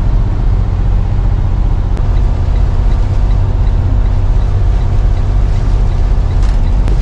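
Semi-truck's diesel engine running steadily under load with the engine brake on its first level, holding speed on a long downgrade, heard from inside the cab as a low, even rumble. Two brief clicks, about two seconds in and near the end.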